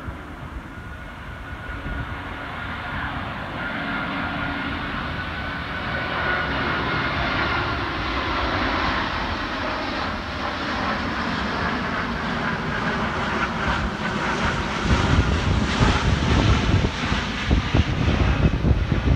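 Rolls-Royce Trent XWB turbofans of an Airbus A350-1000 on approach with its landing gear down, passing low overhead: a jet roar with a faint whine that grows steadily louder, turning into a deep, rough rumble that is loudest over the last few seconds.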